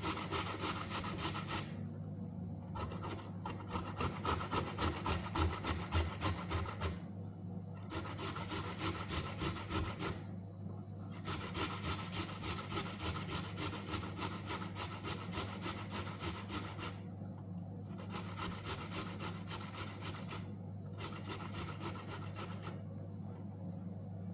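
Ginger root rubbed quickly back and forth on a grater: rapid rasping strokes in about six runs of a few seconds each, with short pauses between them.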